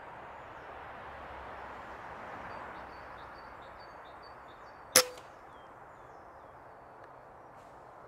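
A single air rifle shot about five seconds in: a sharp crack with a brief ring. It sounds over a steady outdoor hiss with faint high chirps.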